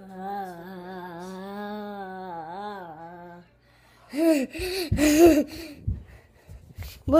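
A voice humming a wavering tune for about three seconds. After a short pause come a few brief, loud vocal cries.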